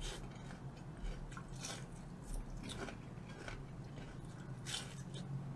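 Close-up biting and chewing of crisp battered fried food: irregular crunches about once a second, with wet chewing in between.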